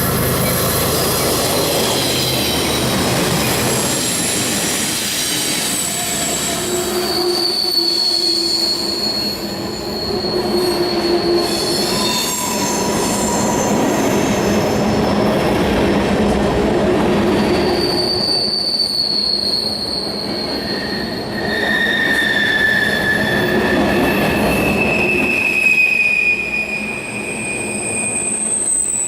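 Freight train rolling past with its wheels squealing against the rail: a series of high, sustained squeals that shift from one pitch to another, over a steady rumble of wheels on track.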